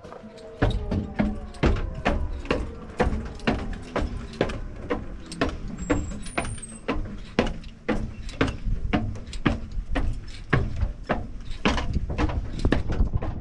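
Footsteps climbing a spiral staircase with diamond-plate metal treads, a steady run of hard knocks about two a second that starts about half a second in.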